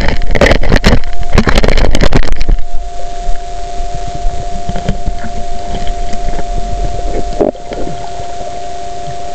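Underwater recording from a camera in a waterproof housing: a run of loud knocks and scrapes for the first two and a half seconds, then a steady two-tone hum over muffled water noise, with one soft knock near the end.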